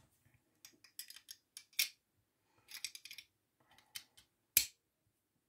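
Parts of a field-stripped airsoft Glock 17 being handled: scattered clicks and light rattles as the slide is picked up and turned over, with one sharp knock about four and a half seconds in.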